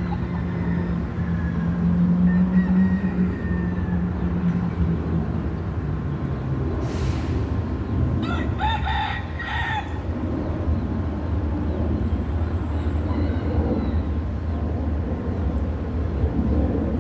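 Rooster crowing once, about halfway through, over a steady low hum.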